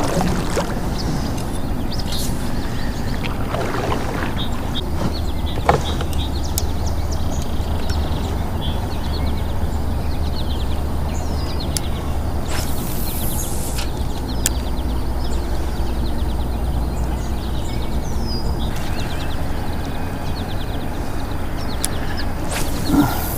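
Outdoor swamp ambience: birds chirping again and again over a steady low rumble that grows heavier from about five to nineteen seconds in, with scattered sharp clicks and one louder knock about six seconds in.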